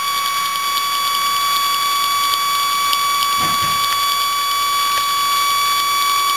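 Hacked floppy disk drive spindle motor spinning at high speed and driving a small computer fan through a rubber belt, giving a steady high whine with faint irregular ticking. The motor runs flat out because its disc is raised clear of the speed sensors.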